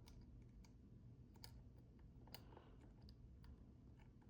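Faint, irregular metallic clicks of a flag pick working the pins inside a Yardeni 6-pin dimple lock, about a dozen light ticks at uneven intervals.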